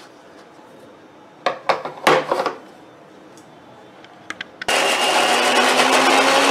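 A plastic lid knocks and clicks as it is fitted onto a steel mixer-grinder jar, a few sharp knocks about two seconds in. About five seconds in, the Philips mixer grinder's motor switches on suddenly and runs loudly, its hum rising slightly as it spins up, grinding roasted coconut into a thick paste.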